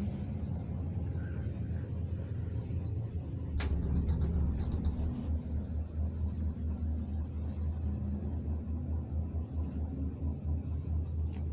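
Low, steady rumble inside a moving Cablebús gondola cabin. A sharp click comes about a third of the way in, and the rumble grows louder after it.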